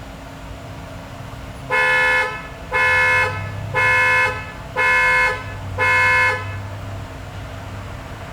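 Car horn sounding five times in an even rhythm, about once a second, each honk about half a second long.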